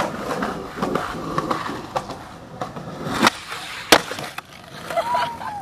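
Skateboard wheels rolling over rough asphalt, broken by several sharp knocks and claps of the board, the loudest about four seconds in.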